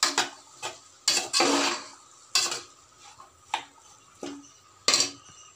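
Metal spoon stirring a thick vegetable-and-bean mixture in an aluminium pressure cooker, knocking and scraping against the pot's sides at irregular intervals, with one longer scrape about a second and a half in.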